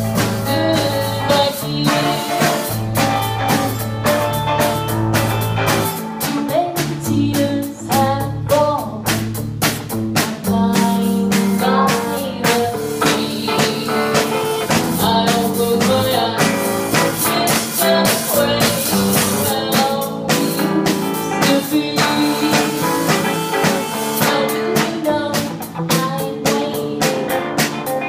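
Live band playing a song: electric guitar and drum kit, with a woman singing lead.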